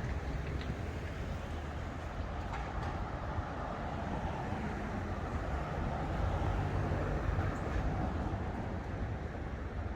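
Steady low rumble of city street traffic, engines and tyres going by with no single vehicle standing out.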